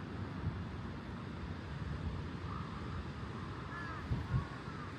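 Birds calling a few times, short curving calls about halfway through and again near the end, over a steady low outdoor rumble.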